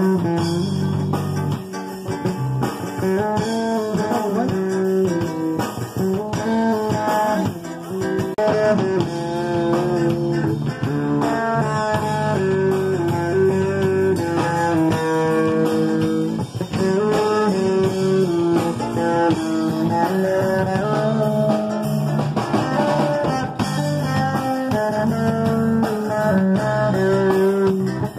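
Small live band playing, with electric guitar carrying a melody over acoustic guitar, bass and a drum kit.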